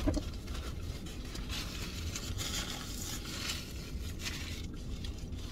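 Faint rustling and crinkling of food packaging as someone eats inside a car, with a short click at the start, over a low steady rumble.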